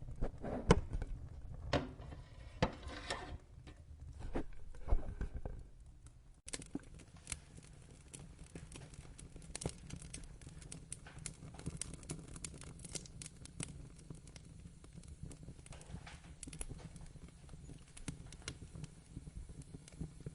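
Wood fire burning in a fireplace: a low rumble of flames with irregular crackles and sharp pops of burning logs. About six seconds in the sound changes abruptly, and after that crisp, frequent snaps dominate.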